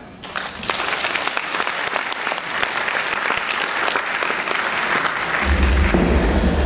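Audience applauding, a dense patter of clapping. About five seconds in, music with a heavy low drum and bass beat starts under the applause.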